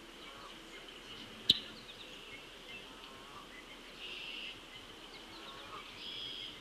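Outdoor bird ambience over a steady high-pitched hiss, with a single sharp chip about a second and a half in and two short buzzy trills around four and six seconds in.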